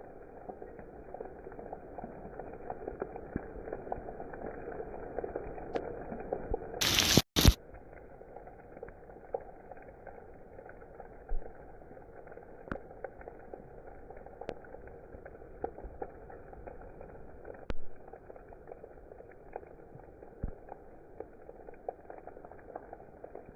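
Steady rain with scattered ticks of drops, and a brief loud crackling burst of noise about seven seconds in.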